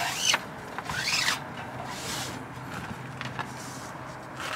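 Thin tie-down strap webbing being pulled through its buckle to tighten it: two short zipping rasps that rise and fall in pitch, followed by a few light clicks.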